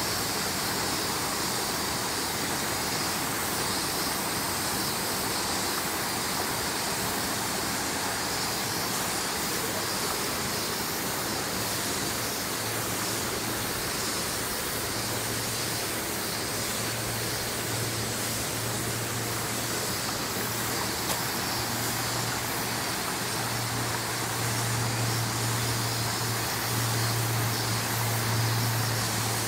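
Steady outdoor background hiss with no distinct events. A low hum from an unseen machine or vehicle comes in about halfway and grows louder near the end.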